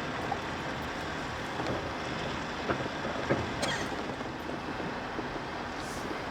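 Car cabin noise while driving on a rough, bumpy road: a steady rumble of tyres and road, with a few short knocks and rattles from the bumps.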